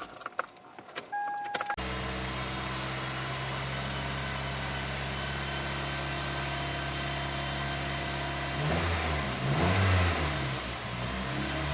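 Toyota 1.8-litre four-cylinder engine in a 2001 Chevy Prism starting about two seconds in after a few clicks and a short beep, then idling steadily, with a brief rise and fall in engine speed around nine to ten seconds in. The engine is running lean, traced to restricted fuel injectors.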